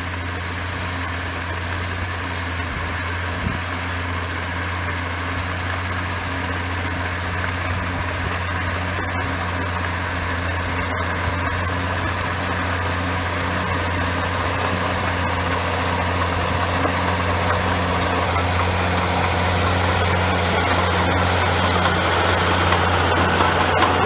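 David Brown 50 ITD crawler tractor's diesel engine running steadily as it pulls a four-furrow drag plough through the soil. It grows gradually louder as the crawler draws near.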